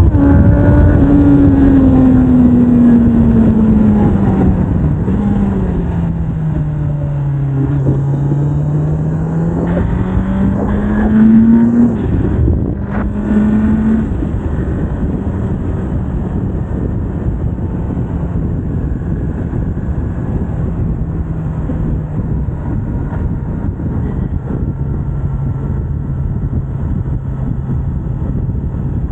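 Kawasaki Z900's inline-four engine on its stock exhaust, ridden: the revs fall over the first several seconds, climb again about ten seconds in with a short blip after, then settle to a steady lower note. Wind rushes over the microphone throughout.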